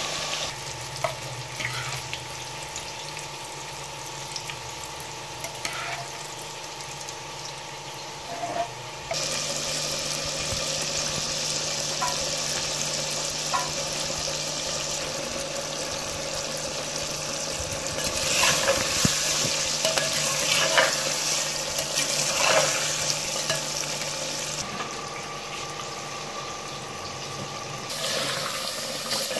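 Chicken pieces sizzling as they fry in hot oil in a clay handi pot, with a spatula stirring and scraping now and then. The sizzle is fainter at first and jumps up about nine seconds in.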